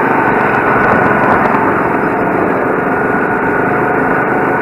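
Go-kart engines running steadily while under way, heard from on board a kart, with a faint steady whine above the engine noise.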